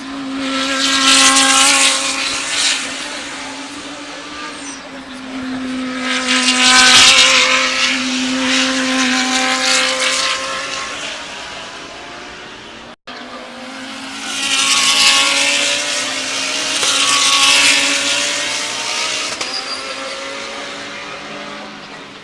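GT3 race cars passing one after another at high revs, each engine note swelling and fading away. About four loud passes, with an abrupt break about 13 seconds in.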